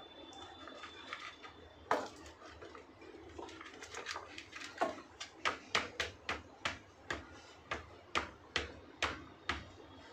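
Sharp knocks of hard objects: one about two seconds in, then a quick run of them at roughly two a second from about halfway through.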